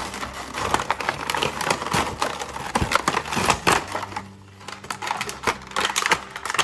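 Packaging of a toy car track set being torn open and handled: a dense, irregular run of plastic and cardboard crackling and clicking.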